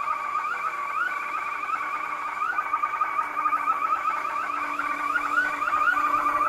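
Car alarm siren wired in as a car's horn, malfunctioning and going off on its own. It sounds continuously in a warbling electronic pattern, its tone chirping upward quickly over and over.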